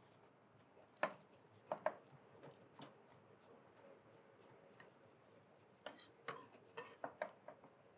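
Chef's knife chopping cilantro on a cutting board: a few sharp knocks of the blade in the first seconds, then a quicker run of chops near the end.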